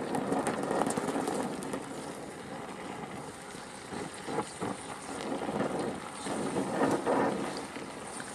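Oxyacetylene welding torch flame hissing steadily as it melts a steel panel and filler rod, with light crackling from sparks. The flame noise swells louder twice, about four seconds in and again near the seventh second.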